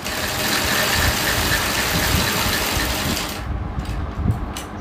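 Black hand-operated sewing machine stitching a hem in curtain fabric, running steadily for about three seconds and then stopping.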